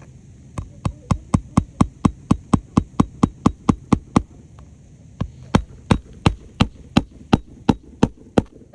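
Hammer driving roofing nails into asphalt shingles: two quick runs of sharp strikes, about four a second, with a short pause between them.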